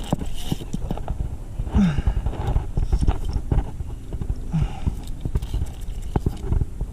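Irregular clicks, knocks and low thumps of fishing tackle and the canoe being handled while a big catfish is fought on rod and reel, with two short strained grunts about two and four and a half seconds in.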